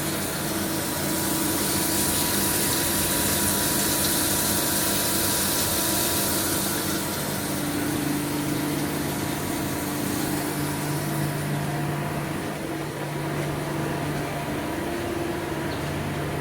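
Okuma MX-45VAE CNC machining center running: a steady machine hum with a high hiss over it that fades after about seven seconds.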